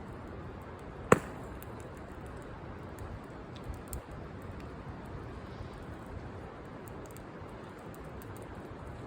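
Wood campfire crackling: scattered small pops, with one loud, sharp pop about a second in.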